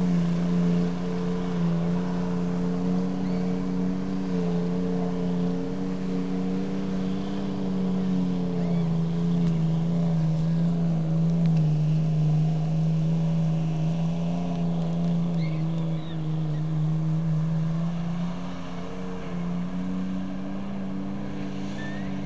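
Jeep Cherokee XJ engine held at high, steady revs under load in deep mud. Its pitch sags slowly through the middle, then climbs again about eighteen seconds in.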